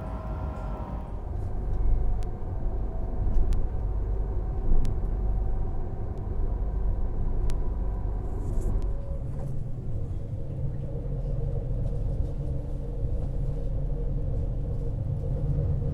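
Passenger train running, heard from inside the carriage: a steady low rumble with a few sharp clicks, and a steady motor hum that settles in about halfway through.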